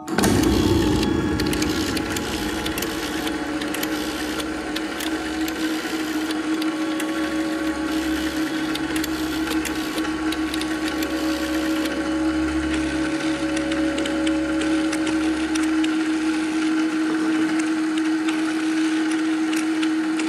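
Electronic part of a percussion-and-electronics piece. Harsh mechanical crank-and-gear noise erupts suddenly at the start and grinds on densely over a steady held drone tone. A low throbbing pulse comes and goes in the middle.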